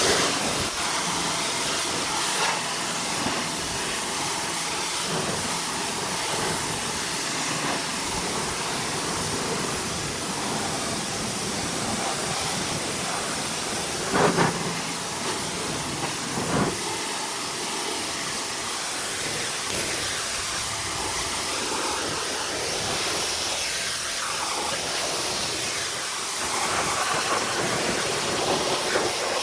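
Steady hissing water spray from a pressure washer jet on a wheel and tire, with two brief louder bursts about halfway through.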